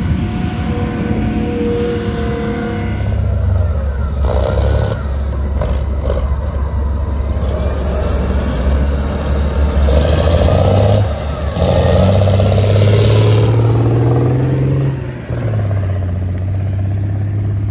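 Engine of a tracked armoured vehicle running under load, rising in pitch as it revs up about twelve seconds in, then dropping back and holding steady.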